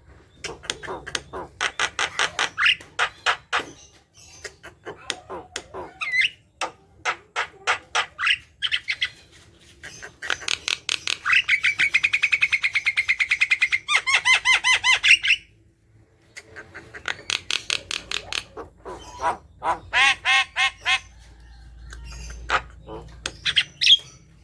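Javan myna (jalak kebo) singing a loud, chattering song of rapid repeated sharp notes, with a long fast rattling trill in the middle. It breaks off briefly about sixteen seconds in, then resumes with more quick runs of notes.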